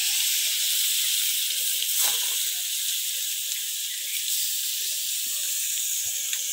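Silver carp steaks, rubbed with turmeric and salt, sizzling steadily in hot oil as they are laid into the pan, with a few soft knocks.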